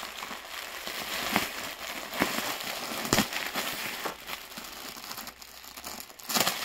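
Clear plastic garment bags crinkling and crackling as poly-wrapped clothing bundles are pulled from a stack and handled, with a few sharper crackles among them.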